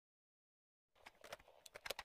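Silence, then from about a second in a run of small clicks and rattles from a cassette recorder's piano-key buttons being handled, growing louder toward the end.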